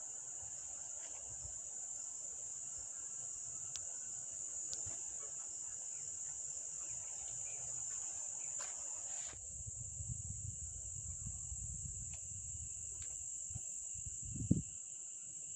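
Steady, high-pitched drone of insects in the surrounding trees and grass. About two-thirds of the way through a low rumble of wind on the microphone joins it, and a short low sound comes near the end.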